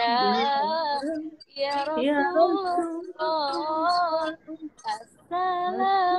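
A woman singing an Islamic devotional song (sholawat) in long held notes with a wavering vibrato, in four phrases broken by short pauses.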